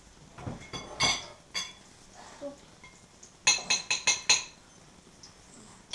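Metal forks clinking against plates: a few taps about a second in, then a quick run of about five bright clinks around three and a half seconds in.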